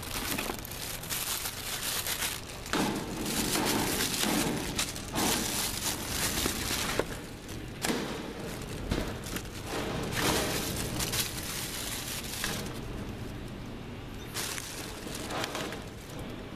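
Plastic wrapping crinkling and rustling in irregular bursts, with occasional sharper clicks, as the cordless phone handsets are unwrapped from their packaging.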